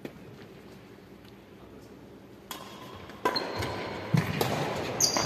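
Badminton rackets striking a shuttlecock, echoing in a large hall: one hit right at the start, then a quick run of hits from about two and a half seconds in as a rally gets going. Short high squeaks from players' shoes on the wooden court floor come between the hits.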